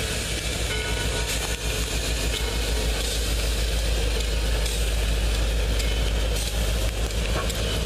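Diesel locomotive's engine running steadily at low throttle, its low drone growing louder about two seconds in as it comes alongside, over the rumble of the slowly passing train.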